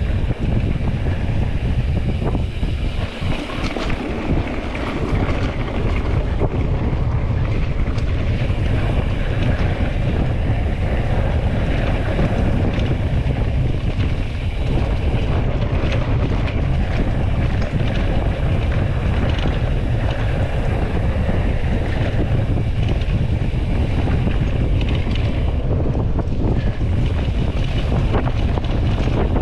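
Steady wind buffeting the microphone, a loud low rumble with a rushing hiss over it, dipping briefly about three seconds in.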